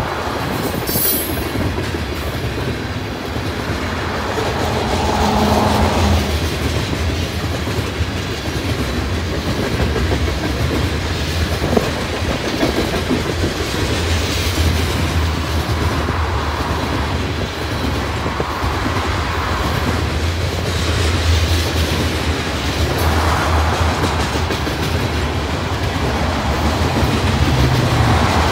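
Freight train of tank cars rolling past at close range: a steady, continuous rumble of steel wheels on the rails, with a brief high squeal about a second in.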